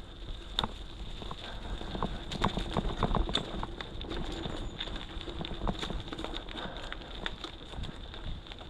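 Mountain bike rolling over a rough, stony trail: irregular clicks, knocks and rattles of the bike and tyres on rocks, with a harder run of knocks about two and a half to three seconds in, over a low rumble.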